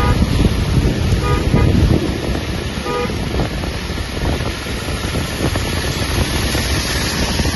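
Steady rushing noise of a car driving on a wet road, from tyres and wind. A vehicle horn toots briefly twice, about one and three seconds in.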